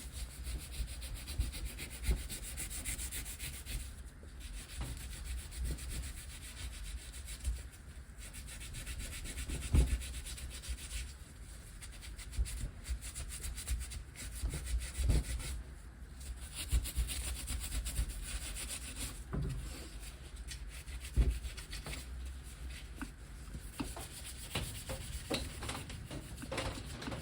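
A stiff brush scrubbing the wet aluminium cases of a Minarelli AM6 50cc engine, in runs of quick back-and-forth strokes broken by short pauses. A few dull knocks come through, the loudest about ten seconds in and again near twenty-one seconds.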